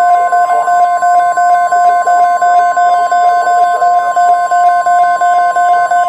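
NOAA Weather Radio's steady 1050 Hz warning alarm tone, announcing a new alert message, with a lower tone pulsing rapidly over it several times a second.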